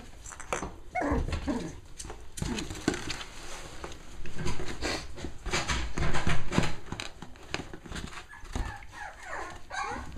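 Cavalier King Charles Spaniel puppies whimpering and yipping as they play, a few short cries about a second in and again near the end. Between them come many sharp clicks and scuffles, loudest in the middle.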